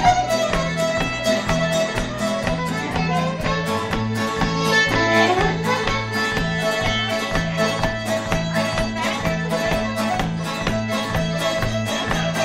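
Fiddle playing a lively Gwich'in jam tune, with slides between notes, over a steel-string acoustic guitar strumming a steady rhythm accompaniment.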